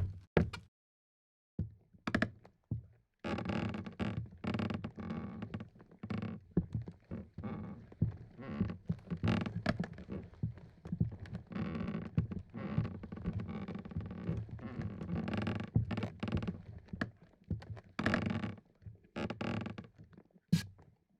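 Boots walking on creaky wooden floorboards: a few separate footfalls, then a long stretch of steady steps with the boards creaking under them, ending in a couple of single steps.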